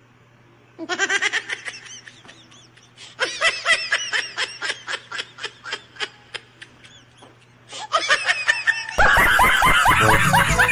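Laughter sound effects dubbed in as bursts of quick, repeated giggling. About nine seconds in, a louder laughing meme clip cuts in, with music under it.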